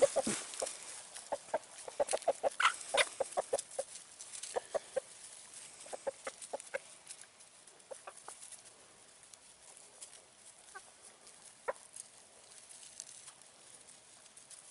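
A flock of Icelandic chickens clucking as they feed, short clucks coming quickly in the first few seconds and then thinning out and growing fainter.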